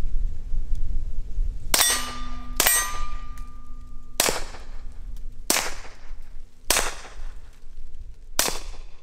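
Six shots from a Walther PPK/S .22 LR pistol fitted with an Odin Works Nav 22 suppressor, roughly a second apart, each a sharp crack followed by a ringing metallic clang from the target being hit.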